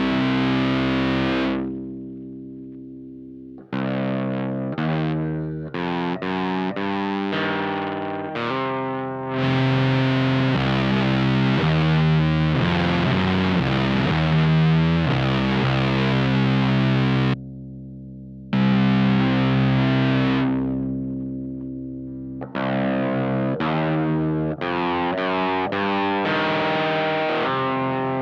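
Distorted electric guitar through a one-knob fuzz pedal into a '69 Laney Supergroup amp, playing a slow, heavy doom riff. Long chords are left to ring between runs of short choppy notes, with a sudden stop about two-thirds of the way through before the next chord.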